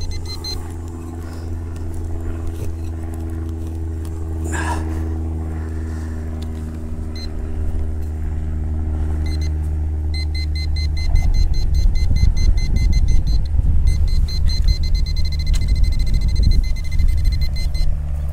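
A low steady rumble throughout. From about ten seconds in, a pinpointer's high electronic beep pulses rapidly as it sounds off over a buried coin.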